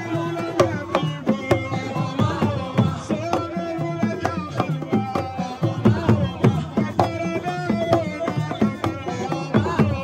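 Hand drums beaten in a fast, busy rhythm with voices singing over them.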